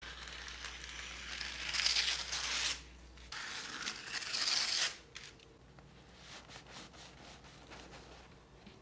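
Scissors cutting through parchment baking paper in two long cuts, a crisp slicing and crinkling of the paper, each lasting a second or two. Fainter crackles follow.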